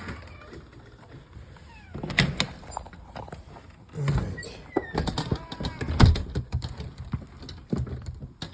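A door being opened and shut, with scattered knocks, clicks and footsteps and one loudest thud about six seconds in.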